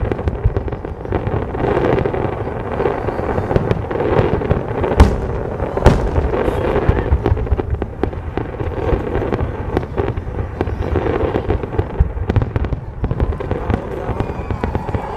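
Fireworks display in full barrage: a dense, continuous run of bursting shells, crackling and booming without a break, with the loudest bangs about five and six seconds in.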